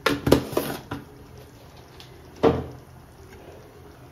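Steel ladle knocking against the metal kadhai as thick pav bhaji is stirred: a quick run of sharp knocks in the first second, then one more about two and a half seconds in.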